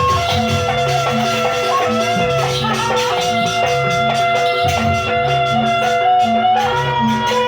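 Live jaranan gamelan music playing a sampak piece: a held, wavering melody line over a steady repeating beat of low pitched strikes.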